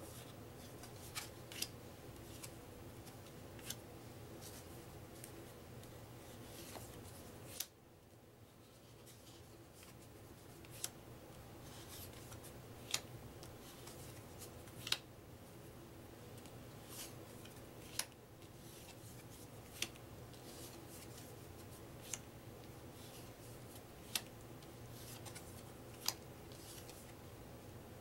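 Cardboard trivia cards being put down one at a time onto a stack on a wooden table, a short sharp tap or snap every two seconds or so, over a faint steady hum.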